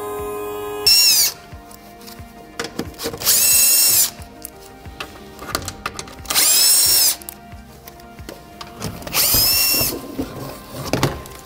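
Cordless drill-driver spinning in four short runs, each under a second, with a high whine that dips slightly in pitch as each run starts, as it undoes the screws of a car's plastic under tray.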